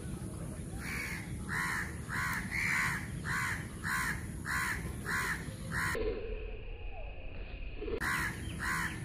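Crow cawing: a regular run of harsh caws, about one every half second for some five seconds, then after a short pause two more near the end.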